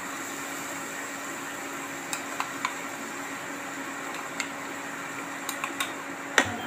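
Metal spatula clinking and scraping against a nonstick wok as onions and a spooned-in green paste are stirred, a few sharp clicks from about two seconds in, the loudest near the end. Under it runs a steady hiss with a constant hum.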